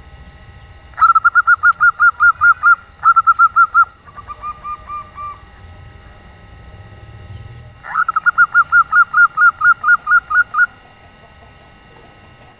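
Female zebra dove calling: quick runs of short, clear cooing notes, about six a second. Two runs close together about a second in, a softer, lower run around four seconds in, then a longer run after a pause near eight seconds. This is the call a female gives to draw males into calling.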